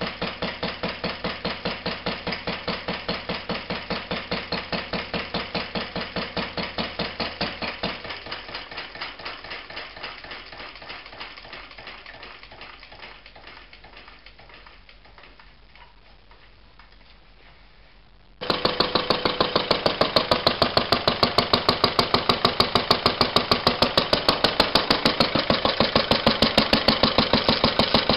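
1949 Lister D 1.5 hp single-cylinder stationary engine running with an even beat of firing strokes. About eight seconds in it stops firing and runs down, its beat fading and slowing over several seconds. After about eighteen seconds the engine is heard running again, abruptly, much louder and closer.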